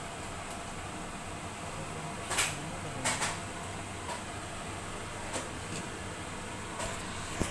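Soup at a rolling boil in a large stainless steel stockpot, a steady hiss and hum, broken by a few sharp knocks and clicks as the pot's glass lid is taken off and handled, the loudest about two and a half and three seconds in.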